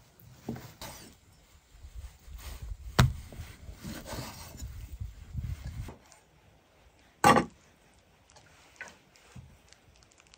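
Handling noises, rustling and shuffling, with two sharp knocks about three and seven seconds in.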